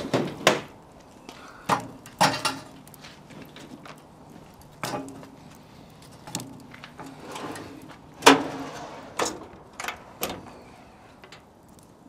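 Split firewood pieces knocking against each other and the steel firebox drawer as they are added by hand to a burning wood fire: about ten irregular knocks, some with a short metallic ring.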